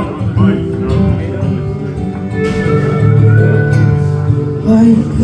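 Music led by guitar, with sustained notes, before any singing comes in.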